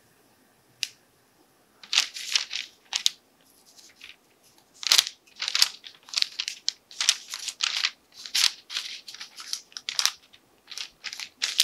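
Baking paper rustling and crinkling under hands that twist and pinch soft bread-dough petals, in short irregular scrapes that come thick and fast from about two seconds in.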